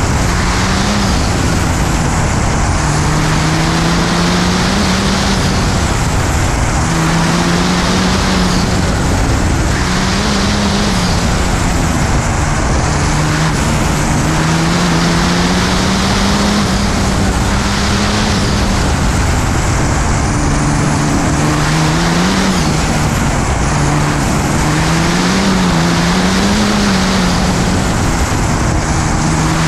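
A 6.7 Cummins inline-six diesel race engine with compound turbochargers, heard onboard while the truck is driven hard up a winding mountain road. Its note rises and falls repeatedly as the driver gets on and off the throttle through the bends, over a steady rush of air and road noise.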